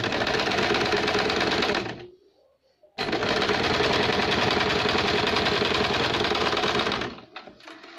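Usha Janome electric sewing machine stitching a blouse neckline: it runs for about two seconds, stops for about a second, then runs again for about four seconds.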